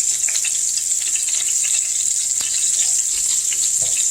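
Breaded duck pieces frying in hot oil: a steady sizzle with frequent small crackles and pops of spattering oil.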